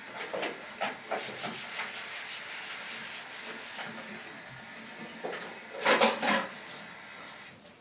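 A small dog scuffing and rubbing at a fuzzy scarf on carpet: a few short scratchy rustles, then a louder pair of rubbing noises about six seconds in.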